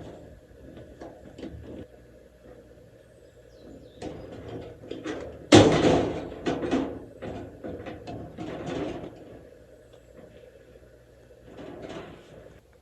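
Knocks and clattering of things being handled, with one sharp bang about five and a half seconds in followed by a few seconds of rattling and rustling.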